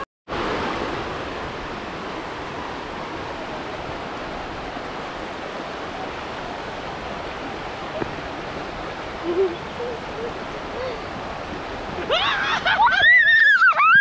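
Fast creek water rushing over rocks in rapids, a steady, even hiss. About twelve seconds in, high, wavering whines rise loudly over it.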